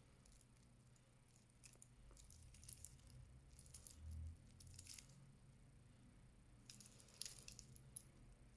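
Faint light metallic clinks and rattles in two spells of a few seconds each, with a soft thump in the middle of the first: a metal wristwatch with an expansion bracelet being handled.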